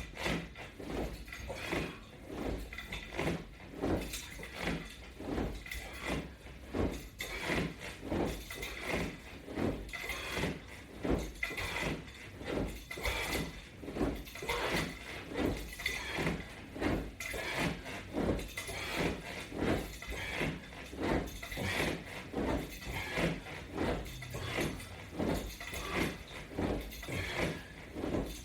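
Rhythmic sounds of a person doing crunches with resistance straps: a short pulse about once every three-quarters of a second, keeping an even pace throughout.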